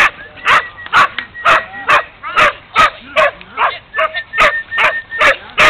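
A dog barking over and over, about two barks a second, during rough play with other dogs.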